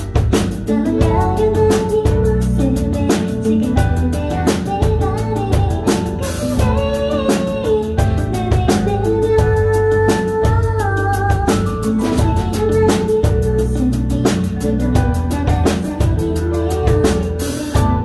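A woman singing a pop ballad live into a microphone, accompanied by a drum kit with a steady beat and bass.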